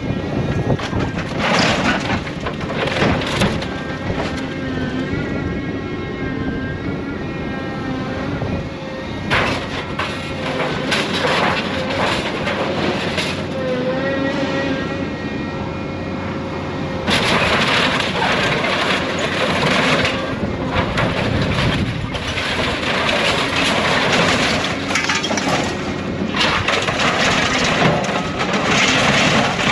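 Scrap-handling excavator running as its grapple handles scrap metal: repeated crashes, clanks and scraping of sheet metal over the steady sound of the engine and hydraulics. The clatter comes in bursts early on and around the middle, and is almost continuous through the second half.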